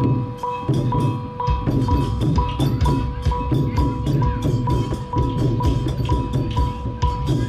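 Percussion band playing a steady beat: drums with a ringing metal strike about twice a second.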